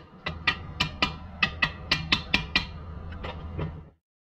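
A quick run of sharp metallic clicks, about four or five a second, from a hand tool working on the rear suspension bolts. The clicks thin out and stop, then the sound cuts off just before the end.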